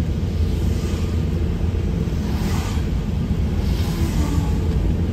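Car driving at road speed, heard from inside the cabin: a steady low rumble of tyres and engine, with two brief swells of hiss midway.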